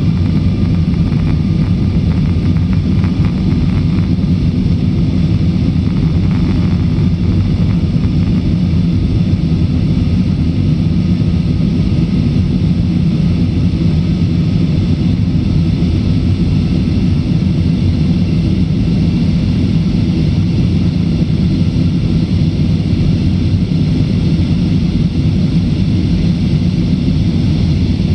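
Steady cabin noise inside an Airbus A320-family airliner climbing after takeoff: a continuous low rumble of the engines at climb power and the airflow over the fuselage, heard from a seat over the wing.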